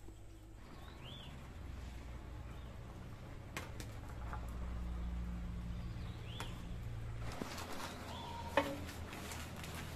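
Short bird calls, each a quick rise-and-fall chirp, repeating every few seconds over a low rumble. A few light clinks of a metal ladle in an aluminium cooking pot, and one sharp knock near the end.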